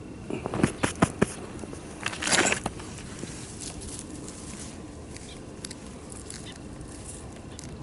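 Gloved fingers digging in stony, gravelly soil to work out wild garlic bulbs. A few sharp clicks of small stones knocking together come in the first second or so, then a short scrape of soil and grit about two seconds in.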